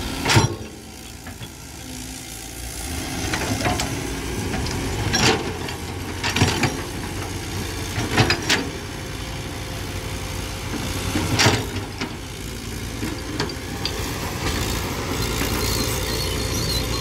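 Caterpillar tracked excavator's diesel engine running steadily as it digs dry soil, with several sharp metal clanks from the bucket and arm, the loudest right at the start and about eleven seconds in.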